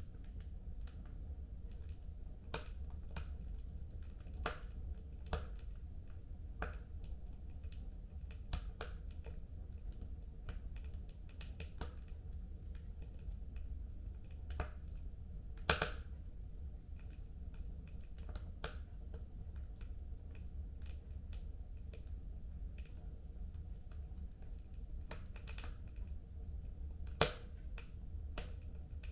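Fire crackling in a home fireplace: scattered sharp snaps and pops over a steady low rumble, with two louder pops, one a little past halfway and one near the end.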